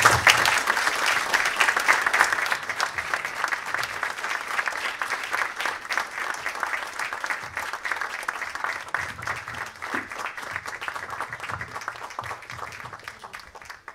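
Audience applauding: dense clapping that starts at full strength and slowly dies away over about fourteen seconds.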